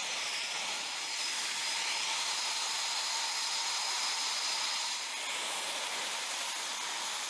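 Steady hiss of jet turbines running on an airfield flightline, with a faint high whine held steady over it.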